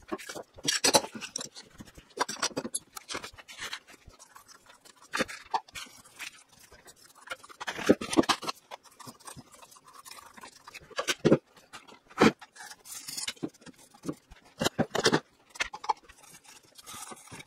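Irregular knocks, clicks and scrapes of wooden clamping blocks and metal bar clamps being handled and set around a glued-up wooden frame.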